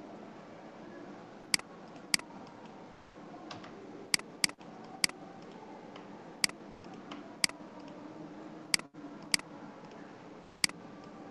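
Computer mouse clicking: about ten sharp single clicks at irregular intervals, over faint steady room noise.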